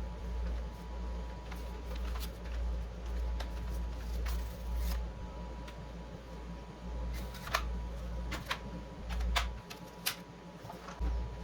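Scattered sharp clicks and light rustling over a steady low rumble, with a faint steady tone throughout.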